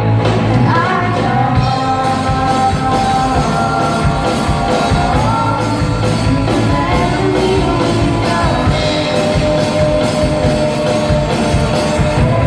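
Rock song played by a band with singing, the voice holding long notes over drums and guitars.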